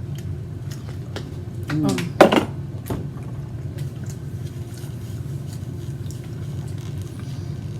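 Eating at a table: a few light clicks of a utensil against a plate over a steady low hum, with a brief 'mm' about two seconds in.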